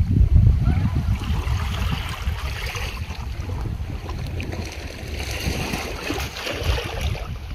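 Wind rumbling on the microphone, with the rustling of a nylon carry bag as a small electric outboard is pulled out of it.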